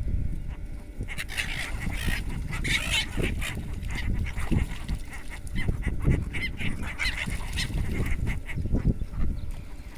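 A flock of birds calling, many short overlapping calls starting about a second in, over a steady low rumble.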